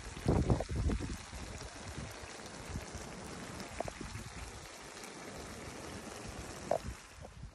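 Water boiling hard around the rice in a kazan of plov, a steady hiss of simmering. A few dull low thumps sound near the start.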